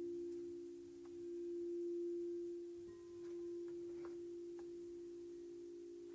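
Meditation background drone of pure, sustained tones like a tuning fork or singing bowl. It hums steadily, swelling and fading slowly, and shifts slightly in pitch about three seconds in. A few faint clicks sit underneath.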